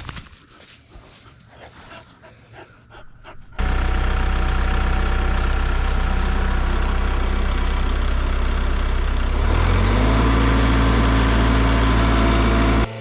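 Kubota MX5400 tractor's diesel engine running steadily, coming in abruptly a few seconds in, then stepping up to a higher engine speed about ten seconds in before cutting off suddenly near the end. Before it, only faint outdoor sounds with a few light clicks.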